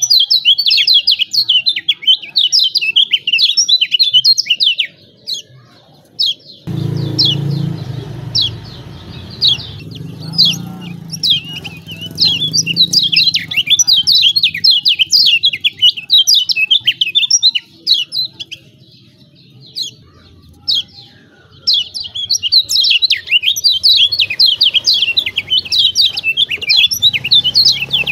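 Kecial kuning (yellow white-eye) giving rapid, excited 'ciak ciak' chirps in long high-pitched bursts, broken by short pauses. It is a lure call used to provoke other white-eyes into singing. A faint low hum runs beneath it for several seconds early on.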